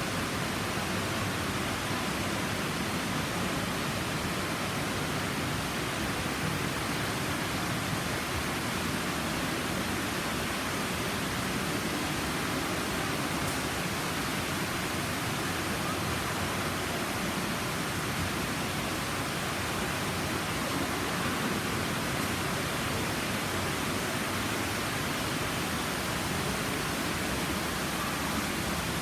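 Steady rush of water falling in a small garden waterfall.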